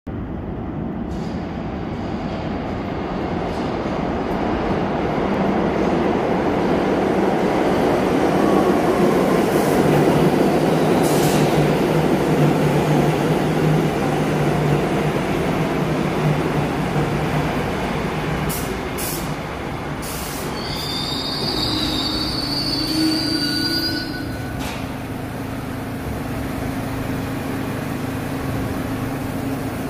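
R62A New York subway train pulling into the station: the rumble of steel wheels on rail builds and peaks about halfway through, then fades as it slows. A high squeal comes from the wheels and brakes as it comes to a stop, and a steady hum follows from the standing train.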